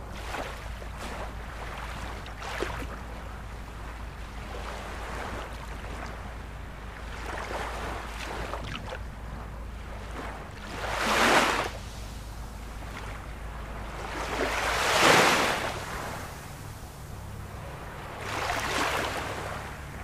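Sea waves breaking in a steady surf wash, with three louder breakers swelling and fading in turn, the loudest about fifteen seconds in.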